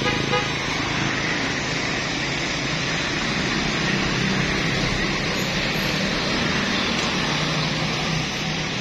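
Steady road-traffic noise: passing vehicle engines and tyres, with engine hum swelling briefly a few times.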